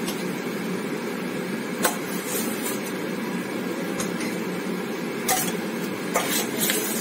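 A metal spatula clinking against a steel kadai now and then, about half a dozen light clicks, as boal fish pieces are added to the reduced gravy, over a steady low rushing noise.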